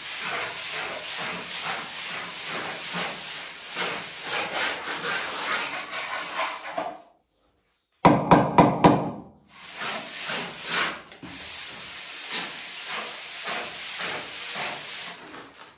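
Plastering float rubbed over a rendered wall in quick back-and-forth strokes, a steady scratchy rasp. It breaks off briefly about halfway through, then comes back loudest with a squeal before settling into the same rubbing.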